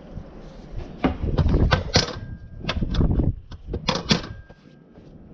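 Metal parts being handled and set down: a string of sharp clanks and knocks, a couple of them ringing briefly like struck steel.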